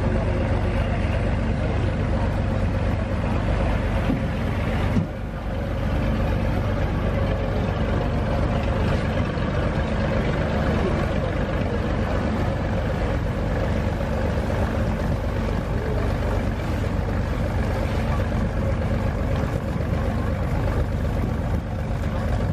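A river launch's engine runs with a steady low drone under a wash of water noise, with a brief break about five seconds in.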